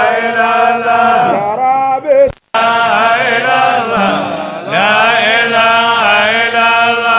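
Male voice chanting a melodic Arabic religious poem in long, drawn-out notes that slide between pitches. The sound cuts out briefly a little after two seconds in.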